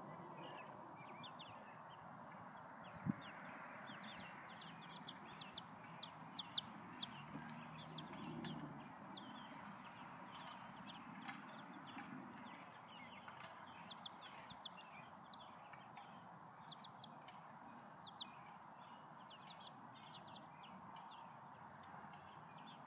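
Faint peeping of week-old silkie chicks: many short high-pitched cheeps in clusters throughout, over a steady outdoor hiss. One sharp click about three seconds in.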